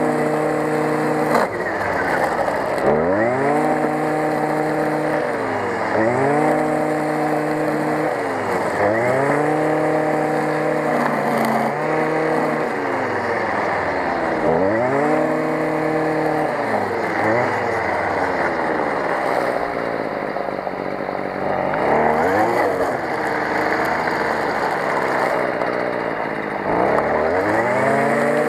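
Stihl FS 55 brush cutter's two-stroke engine revving up and dropping back over and over as the throttle is squeezed and eased, about every two to three seconds, while its trimmer-line head cuts through tall grass.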